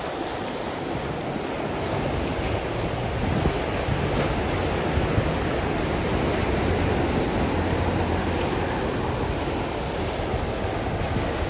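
Ocean surf breaking and washing up on the shore, a steady rushing wash of waves.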